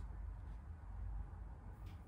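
Quiet room tone with a steady low rumble; no distinct sound event.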